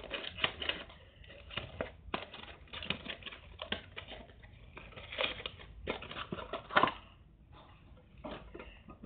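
A small cardboard box being opened and handled by hand: irregular crackles, scrapes and light taps, with one louder tap about two-thirds of the way through.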